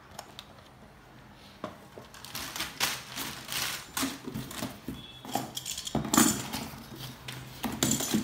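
Cardboard box flaps and plastic wrapping rustling and crinkling as hands rummage in a packing box. It starts about two seconds in, with the loudest crackles near the middle and again near the end.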